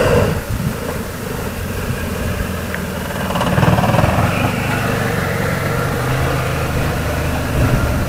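Renault Mégane estate car's engine running at low revs as the car rolls slowly along a dirt track, a steady low hum that swells a little about halfway through as the car comes close.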